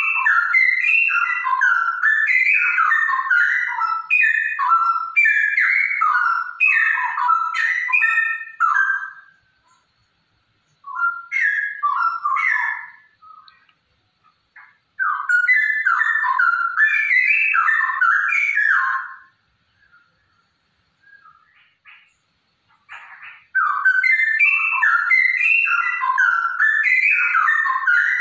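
Female straw-headed bulbul singing loud, rich whistled phrases of quick rising and falling notes, in bouts several seconds long, with short pauses about ten, fourteen and twenty seconds in.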